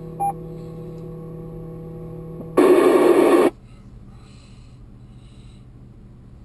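Amateur radio receiving a repeater between transmissions: a steady hum from the open channel, a short beep about a third of a second in, then about a second of loud static that starts and stops abruptly as the repeater drops its carrier, a squelch tail, followed by faint hiss.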